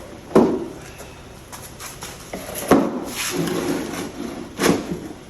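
Plastic car ramps being set down and shifted on the ground: three hard knocks, with a scraping drag between the second and third as a ramp is slid into line with the tire.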